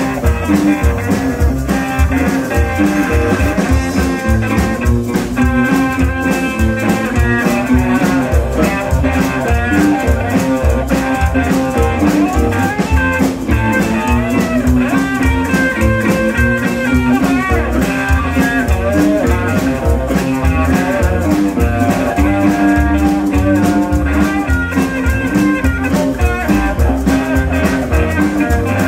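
Live blues band playing an instrumental passage: electric guitars over upright bass and a steady drum beat.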